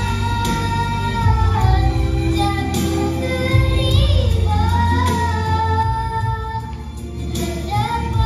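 A group of children singing a melody together over a recorded backing track.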